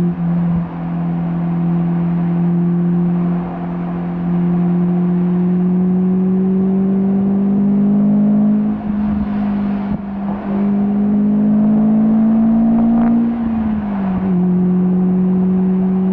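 Sports car engine pulling at steady high revs, its note climbing slowly, then falling away late on as the revs drop.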